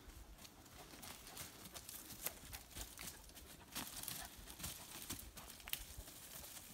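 Footsteps of a dog and a walker crunching and rustling through dry fallen leaves and twigs: faint scattered crackles with a few sharper snaps.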